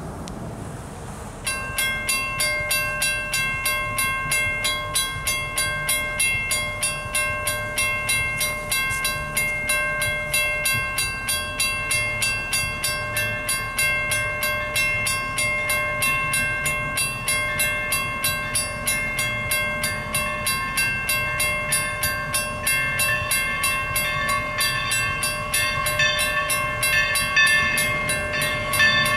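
Everett Railroad 11, a 2-8-0 steam locomotive, working toward the crossing: its exhaust chuffs come in suddenly about a second and a half in and beat steadily at about two to three a second, with steady high tones over them, growing slightly louder near the end as it nears.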